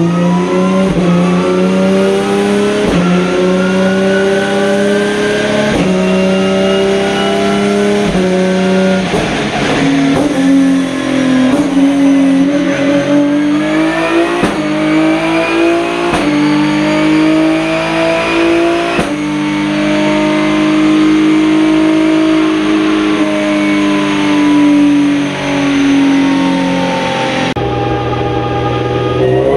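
Hyundai Genesis Coupe 3.8 race car's V6 engine pulling up through the gears of a sequential gearbox under load on a chassis dyno. Each gear brings a rising engine note, cut by a quick, sharp shift break where the revs step down. The shifts come every couple of seconds at first, then the pulls between them grow longer.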